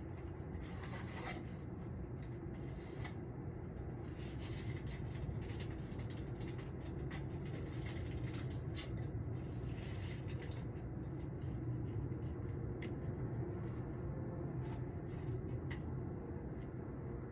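Steady low rumble of distant city traffic, with scattered faint ticks and rustles; no dog barking is heard.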